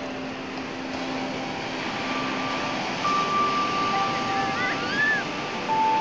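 Sea surf breaking and washing up a sandy beach, a steady rushing noise that swells a little in the second half. Over it, a thin steady high tone comes in about two seconds in and runs almost to the end, with a couple of short chirping glides just before five seconds.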